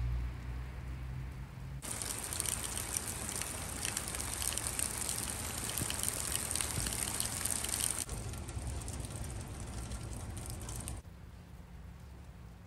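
Steady rain falling and splashing on surfaces; it starts suddenly about two seconds in and cuts off suddenly near the end.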